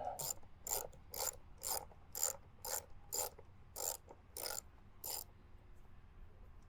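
Small ratchet wrench with an 8mm socket clicking in even back-and-forth strokes, about two a second, as it turns a long screw on an air filter housing; the clicking stops a little after five seconds in.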